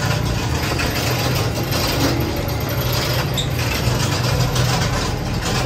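A vehicle engine running at a steady low drone, with road noise over it.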